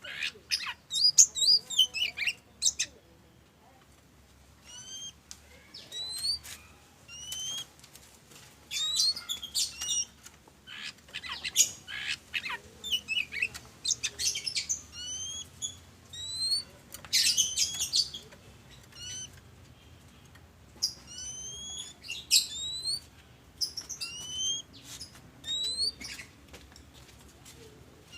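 Oriental magpie-robin singing: fast, varied scratchy phrases alternating with short rising whistles repeated about once a second.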